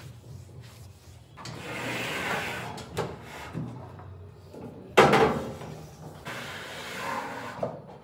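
A cloth rubbing across a hard kitchen countertop in wiping strokes, with a sharp knock about five seconds in, the loudest sound, and a few smaller clicks and taps.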